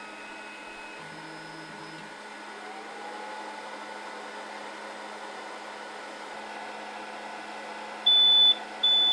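WDS-650 BGA rework machine running its heating program with a steady whir, then two loud high beeps near the end as the program finishes.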